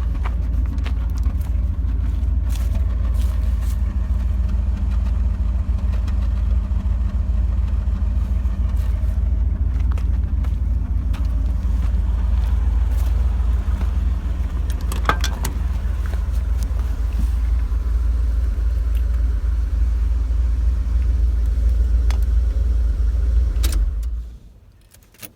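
Chrysler 318 small-block V8 running steadily at idle, then shut off about a second before the end, the rumble dropping away abruptly.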